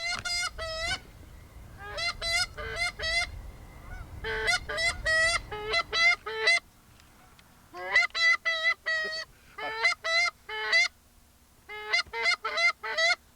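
Geese honking in quick runs of several honks, about six runs with short pauses between them. A low rumble lies under the first half.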